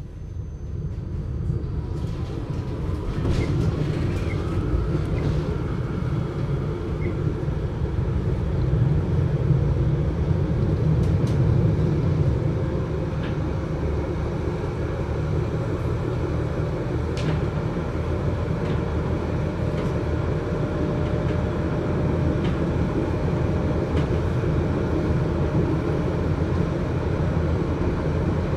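Adtranz GT6M low-floor tram running, heard muffled: a steady low rumble that builds over the first two seconds and then holds, with a faint tone and a few light clicks.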